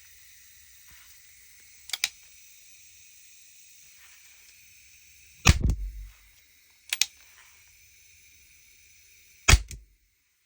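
CO2 Webley revolver replica cocked and fired twice: a sharp double click as the hammer is drawn back, then a loud crack for each shot. A faint steady hiss runs underneath and stops after the second shot.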